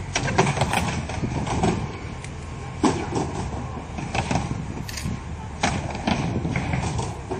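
Skateboard riding a wooden vert halfpipe: wheels rumbling over the plywood, with repeated sharp clacks and knocks as the board hits the ramp.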